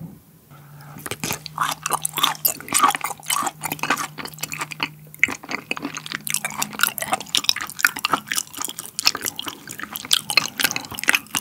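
Close-miked wet chewing of a thick piece of raw beef: dense sticky mouth clicks and squishes. A long low hum runs through the first half or so and stops about two-thirds of the way in.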